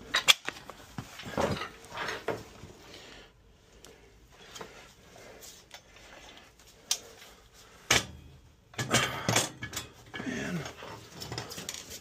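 Metal tools being handled and set down on a tile floor: scattered clinks, knocks and rattles, with a louder burst of clattering about eight seconds in.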